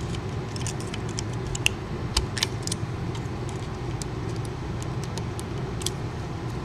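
Light, irregular metallic clicks and ticks of a lock pick working the rotating rings of a Wise-Lock padlock under tension, over a steady low rumble.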